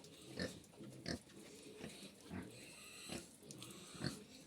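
Pigs grunting: a series of short grunts, roughly one every half second to a second.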